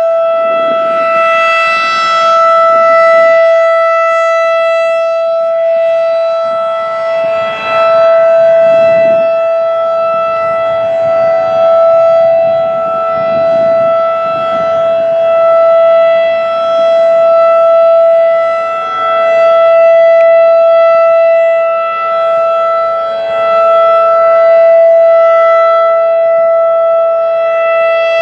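Federal Signal 2001-DC rotating outdoor warning siren sounding its steady alert tone, a single held pitch near 662 Hz, during a monthly siren test. The tone swells and fades in loudness about every five to six seconds.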